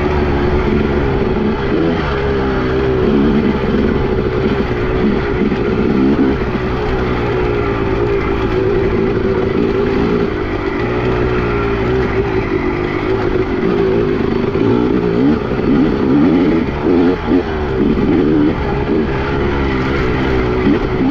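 Two-stroke motorcycle engine running hard while being ridden, its pitch rising and falling over and over as the throttle is worked on and off.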